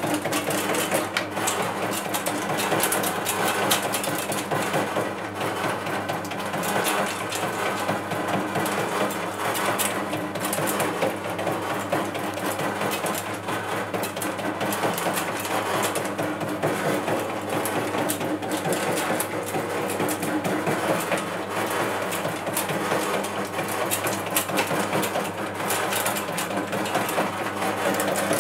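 Custard apple de-seeding machine running steadily: a motor hum under a continuous fast mechanical clatter.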